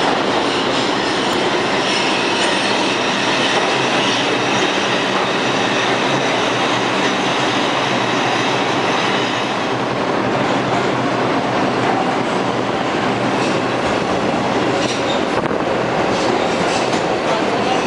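New York City subway train running through the station: a loud, steady noise with high wheel squeal over the first half, then the clatter of wheels over the rails as the stainless-steel cars pass along the platform.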